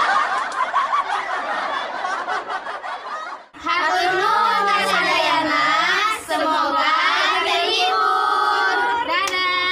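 A loud, dense rush of noise, then from about three and a half seconds in a group of women and children chanting a greeting together in unison, the pitch rising and falling in a sing-song line.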